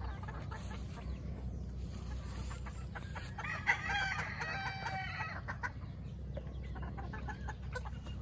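Chickens clucking and calling. A rooster crows once near the middle, a call about two seconds long.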